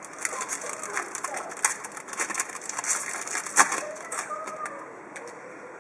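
Foil trading-card pack wrapper crinkling as it is handled and torn open: a run of crackles with a sharp snap about three and a half seconds in.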